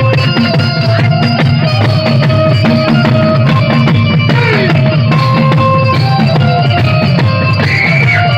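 Instrumental music: a fast, steady drum beat under held melody notes that change every second or so.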